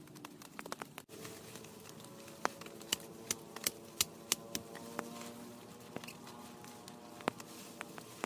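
Rain: sharp, separate drops tapping at irregular intervals over a soft steady patter.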